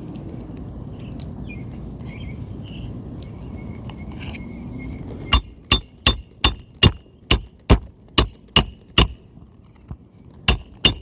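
Hammer driving a roofing nail through the shingle and into the roof decking: a quick run of about ten sharp, ringing metal-on-metal strikes, a short pause, then a few more blows near the end.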